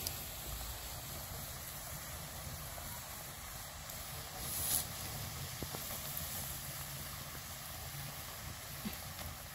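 Tomatoes, garlic and salt simmering in rice water in a wok over a wood fire: a steady low bubbling hiss, with a brief louder hiss about four and a half seconds in and a few faint clicks.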